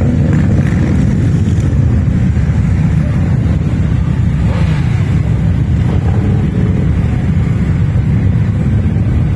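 A column of many motorcycles riding slowly past at close range, their engines blending into a steady, deep engine sound.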